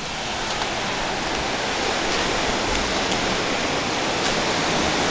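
Steady rushing noise of sea wind and Gulf surf on a high beachfront balcony, growing a little louder over the first couple of seconds.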